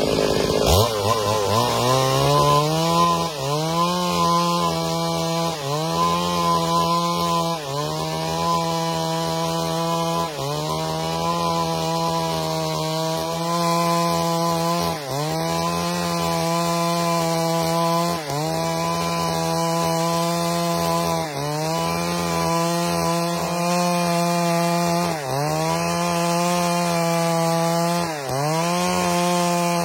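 Chainsaw revving up, then running at high throttle while cutting a log lengthwise into boards. Its engine note dips briefly and recovers every two to three seconds.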